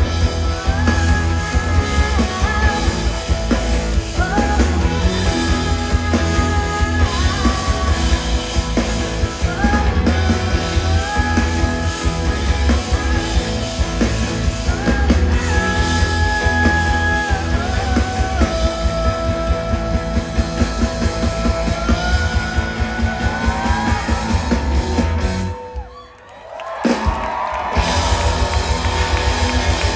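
Live band playing a rock song over the stage PA, with heavy drums and bass under a sung melody held in long stepped notes. The music almost drops out for about a second near the end, then comes back.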